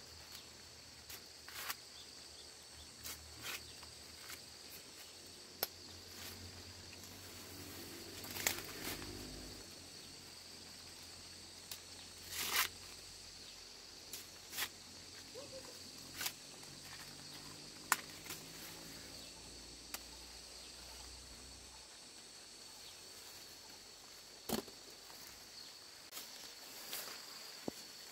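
Insects chirring steadily in a maize field, with scattered sharp snaps and rustles of corn leaves and husks as ears of corn are broken off the stalks by hand.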